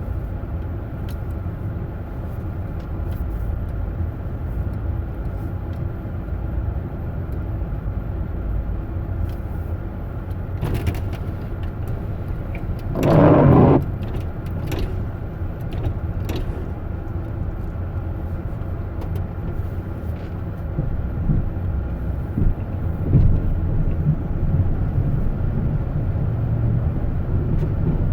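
Steady rumble of a vehicle engine and road noise, with a louder surge lasting under a second about halfway through and a few faint clicks.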